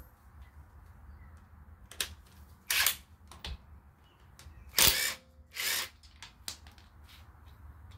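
Short metallic clicks and clanks of a cordless impact wrench's socket being fitted onto a car wheel's lug nuts: a handful of brief knocks, the loudest two about three and five seconds in.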